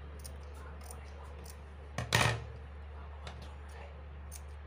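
Scissors making small snips into the seam allowance of a cloth mask: a few faint clicks of the blades, with one louder sharp clack about two seconds in, over a steady low hum.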